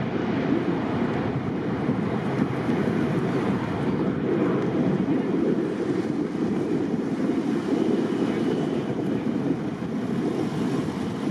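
Jet aircraft's engines at takeoff thrust, a steady low rumbling roar as the plane rolls away down the runway and lifts off, with wind buffeting the microphone.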